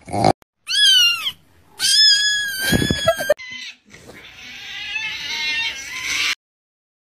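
Cat meowing, edited-in meme sound clips: a short meow that falls in pitch, then a long drawn-out meow, then a longer wailing cry that grows louder and cuts off suddenly.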